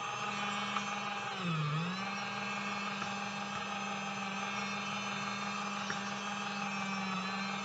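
Small electric motor of a toy mini washing machine whirring steadily as it churns water with a makeup brush inside. Its pitch sags briefly about a second and a half in, then picks back up.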